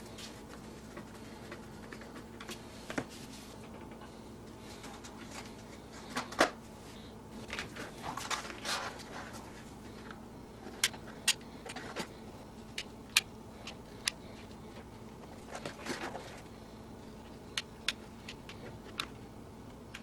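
Scattered sharp clicks and knocks with short bursts of scraping, as small parts are handled and worked on by hand. A faint steady hum lies underneath.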